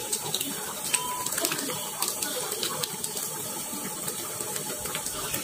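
Broth boiling in an aluminium pan on a gas stove: a steady bubbling hiss with many small pops.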